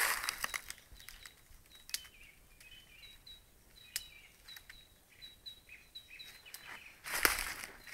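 Footsteps crunching and rustling through dry fallen leaves, at the start and again near the end. In the quieter stretch between them a small bird chirps over and over in short, high notes.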